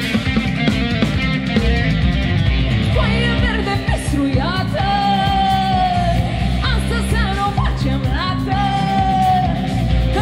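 Loud dance music from a live wedding band, with a steady heavy beat and bass. A singer comes in about three seconds in and holds long notes.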